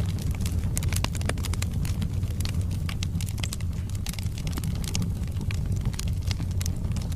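Wood fire burning in a fireplace: many sharp crackles and pops from the logs over a steady low rumble of the flames.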